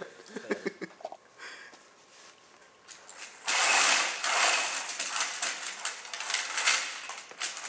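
Mecanum-wheel robot drivebase driving across carpet: its electric drive motors and gearboxes give a noisy mechanical whir full of small clicks. It starts about three and a half seconds in and swells and eases as the robot moves.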